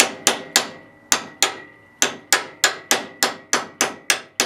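Hammer repeatedly striking a lathe spur drive center to drive its points into the end of a wooden workpiece. A few spaced blows, then a steady run of sharp strikes about four a second, with a faint ring carrying between them.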